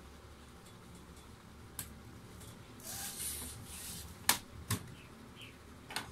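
Hands handling a laptop's plastic bottom case on a wooden desk: a short scraping slide about three seconds in, then a few sharp clicks and knocks, the loudest a little after four seconds.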